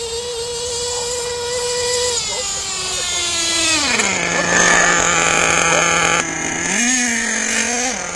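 Small nitro RC truck engine running at a high, steady whine. The revs drop about four seconds in to a lower steady note, then briefly rise and fall again near the end.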